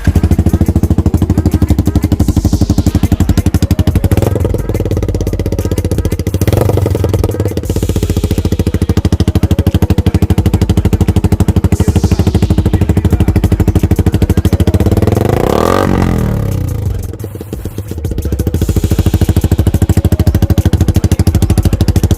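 Yamaha R15's single-cylinder four-stroke engine running through a noisy aftermarket silencer while being ridden, a rapid, loud exhaust beat. The note rises and falls with the throttle, dropping and picking up again about three quarters of the way through.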